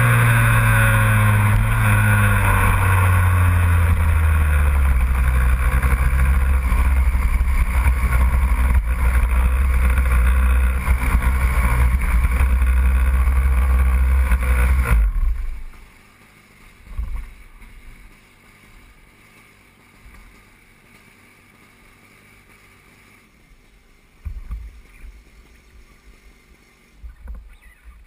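A loud engine running, its pitch falling over the first few seconds as it slows, then holding steady until it cuts off abruptly about halfway through. After that, only faint background noise with a few soft thumps.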